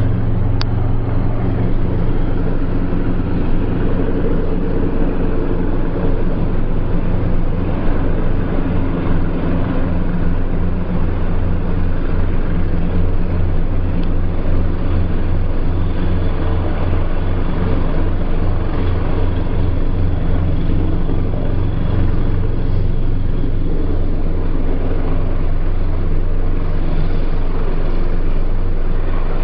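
Eurocopter EC225 twin-turbine helicopter running steadily, with a loud low throb from the rotor and a constant turbine hiss through its landing.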